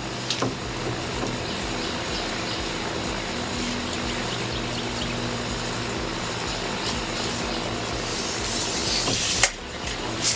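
An engine running steadily, a hum with an even low throb. Near the end a hiss rises, followed by one sharp click.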